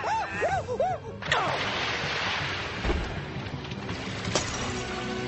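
A cartoon monkey's shrill arching shrieks, cut off about a second in by a sudden crash with a falling whoosh, then a steady rushing noise like churning water as the wrecked car goes under.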